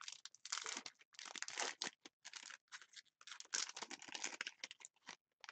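A trading card pack wrapper being torn open and crinkled by hand, in irregular bursts of rustling that stop near the end.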